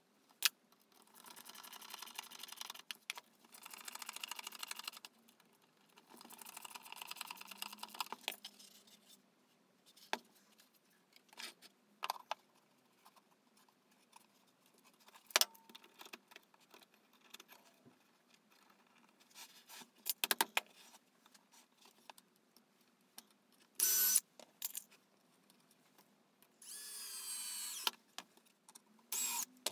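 Bench handling noises: a stiff, gritty sheet rustling and scraping as it is bent and pressed onto the wooden bird-house roof, with scattered sharp clicks and knocks of tools and parts set down on the bench. Near the end there are two short, louder bursts of noise.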